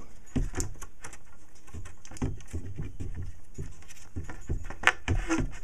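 Close handling noise of small parts being fitted by hand: irregular light clicks, taps and rubbing, with one sharper knock about five seconds in.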